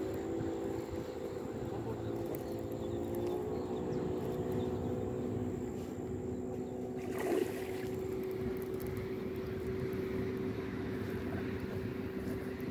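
Steady drone of a motorboat engine on the river, holding a constant pitch, with a brief rush of noise about seven seconds in.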